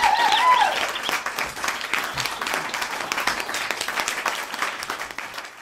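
Audience clapping and cheering, with a few voices whooping in the first second; the applause tapers off near the end.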